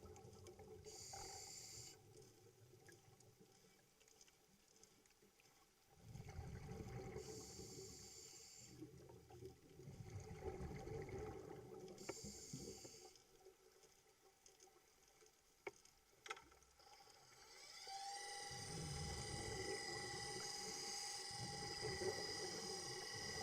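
Underwater noise with recurring breaths, hissing in and rushing out, as through dive or snorkel gear. About three-quarters in, a boat motor's whine comes in, rising briefly and then holding steady.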